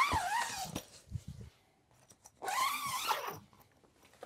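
Zipper on a heavy canvas bed cover being pulled open in two long strokes, each a rasping glide that rises and falls in pitch, with a few soft thumps of the canvas between them.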